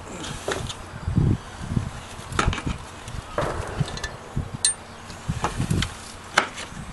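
Scattered light clicks and knocks from hand tools and a plastic tool case being handled, with a few dull low thumps.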